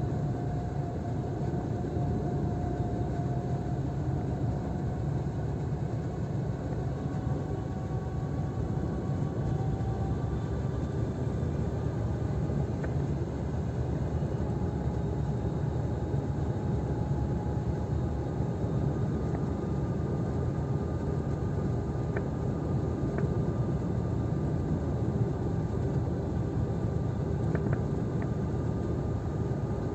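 Car driving on a wet road, heard from inside the cabin: a steady rumble of engine and tyre noise, with a faint whine that drifts slowly in pitch and a few light clicks.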